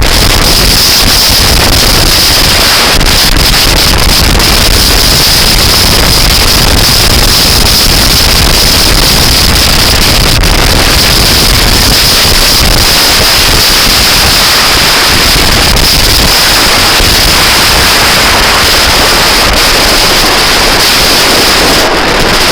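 Wind buffeting the microphone of a moving scooter: very loud and steady, drowning out everything else.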